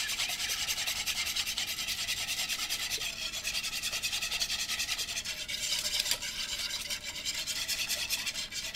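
Wire whisk beating a thin glaze of pineapple juice, brown sugar and mustard in a mixing bowl: fast, even strokes with the wires scraping and rubbing against the bowl and swishing through the liquid.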